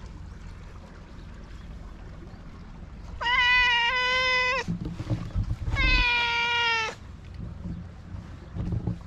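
Cat meowing twice: two long meows about a second apart, the first held at a steady pitch, the second starting higher and falling slightly.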